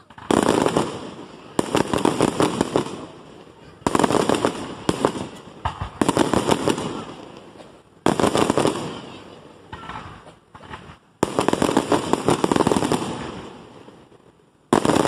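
Aerial fireworks shells bursting overhead, about seven sudden loud bangs in fifteen seconds. Each bang is followed by a dense crackle of popping stars that fades over a second or two.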